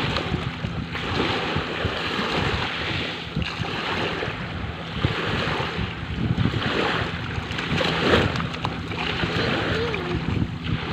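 Sea waves washing on the shore, the surf swelling and easing every second or two, with wind buffeting the microphone.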